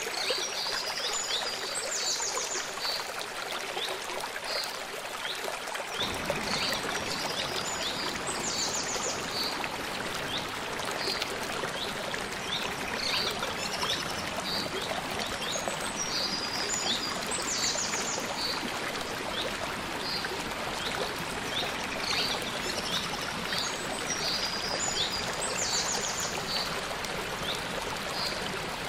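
Steady rush of a small forest stream tumbling over rocks, deepening about six seconds in. A bird repeats a short phrase of high chirps ending in a buzzy trill about every eight seconds.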